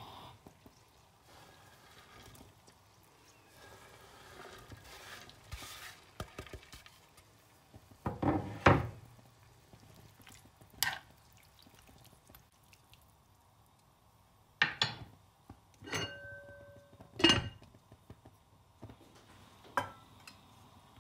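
Cookware sounds at a frying pan: a spoon stirring and scraping, then a series of sharp knocks and clinks of metal and glass, one of them ringing briefly. A glass pan lid is put on near the end.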